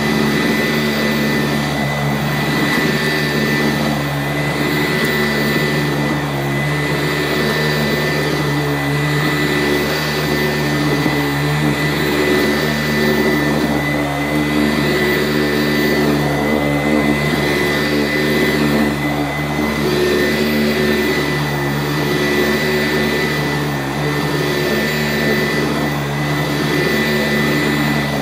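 Sanitaire SC889A upright vacuum running steadily while vacuuming, its motor giving a constant hum with a steady high whine.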